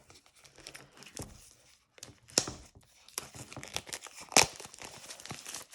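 Plastic shrink wrap being cut and torn off a boxed card deck, crinkling, with a few sharp louder crackles.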